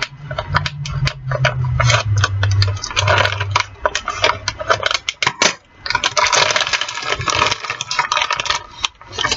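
Plastic pouch of frozen food crinkling and crackling as fingers dig a hole in it and pry it open, with a dense spell of crinkling about six seconds in. A low hum, sinking slightly in pitch, runs under the first four seconds.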